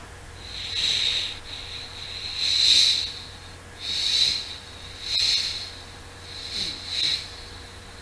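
A voice making a series of short hissing 'shhh' sounds, swelling and fading about six times, an improvised mouth imitation of waves washing onto a beach.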